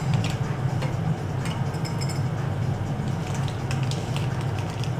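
A steady low hum, with faint scattered clicks over it.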